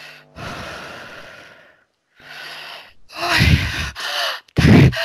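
A woman breathing deeply: a long, heavy exhalation, then a shorter breath, then from about three seconds in a run of loud gasps and voiced sighs.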